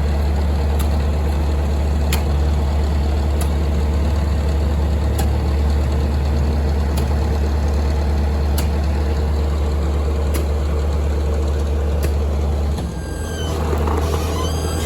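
Engine of a piece of heavy equipment running steadily, with a light click about every one and a half seconds. The engine note dips and changes near the end.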